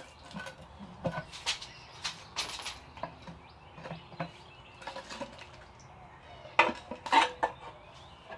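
Steel pry bar knocking and scraping against a cast aluminium engine oil pan as it is levered off the block: a string of sharp metallic clanks, the two loudest near the end.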